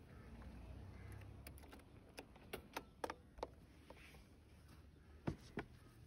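Sharp clicks and knocks as a Honda Activa scooter's seat and under-seat storage are handled and a backpack is put in, over a low rumble. There are about five quick clicks in the middle and two louder knocks near the end.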